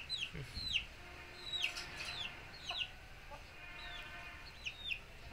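Chicks peeping: repeated short, high notes, each falling in pitch, several a second. A fainter, steadier lower call from a hen runs through the middle.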